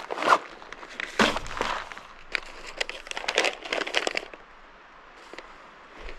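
Rummaging through packed gear, with plastic packaging rustling and crinkling in irregular crackly bursts for about four seconds, then going quieter, as a dehydrated meal pouch is dug out.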